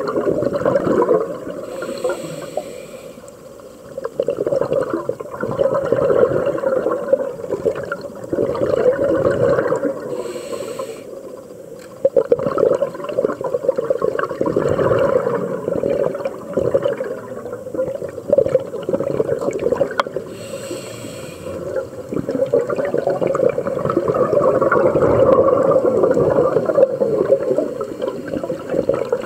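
A scuba diver breathing through a regulator, heard underwater: exhaled bubbles rumbling and gurgling in long swells, with a short hiss of inhalation three times, about two, ten and twenty seconds in.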